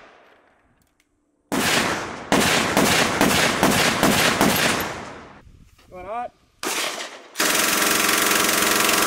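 Gunfire: a string of rapid shots, about four a second, for some four seconds, then a short burst, and near the end a long unbroken burst of fully automatic fire from a bipod-mounted machine gun fired prone.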